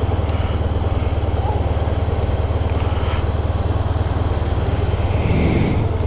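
Motorcycle engine idling steadily with an even low throb, picked up by a microphone inside the rider's helmet. A few faint clicks and rustles from a cable being handled sit on top of it.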